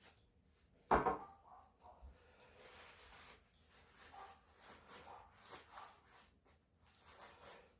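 A single sharp knock about a second in, followed by faint rubbing and handling noises.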